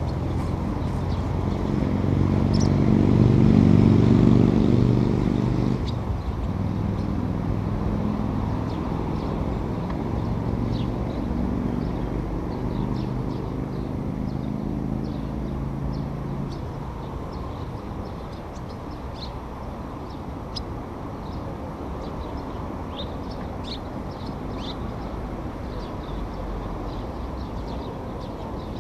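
A passing vehicle's engine, loudest about four seconds in and fading out by the middle, over outdoor background noise. Short high calls of swifts sound again and again, more often in the second half.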